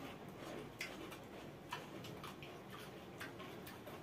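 Eating sounds of rice and chicken curry eaten by hand: soft wet chewing and lip-smacking clicks, irregular, a couple a second.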